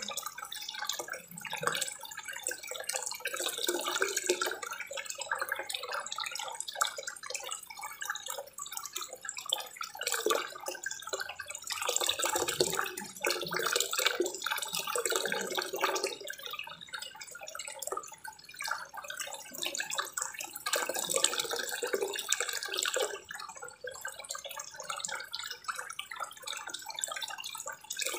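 Water falling from a small spillway spout into a koi pond, a continuous splashing trickle that swells and eases every few seconds.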